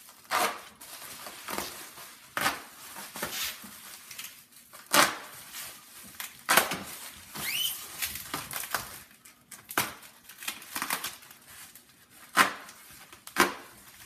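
Bubble wrap crinkling and rustling as it is handled and pulled off a long rifle, with irregular sharp crackles throughout.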